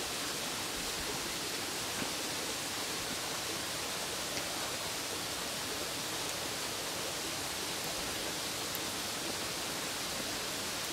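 A steady, even rushing hiss, with a few faint ticks about two, four and nine seconds in.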